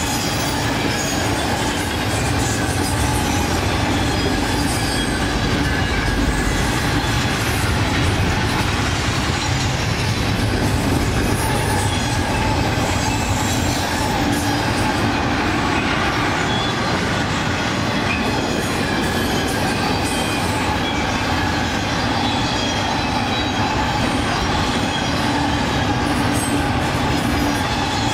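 Double-stack container freight train's cars rolling past at a steady speed: a continuous rumble of steel wheels on rail, with thin steady squealing tones from wheels on the curve.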